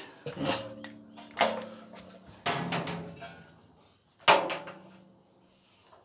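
Sheet-metal clothes-dryer drum being knocked and handled as it is lifted out of the cabinet: four clangs, each ringing on with a metallic tone that slowly dies away.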